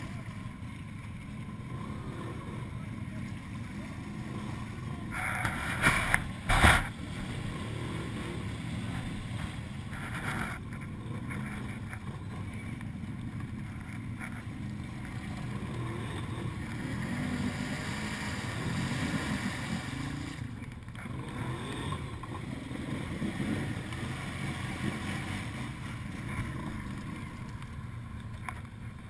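ATV engines running and revving as a quad churns through deep, water-filled mud, the engine note swelling and easing. Two brief, loud, sharp noises come about six seconds in.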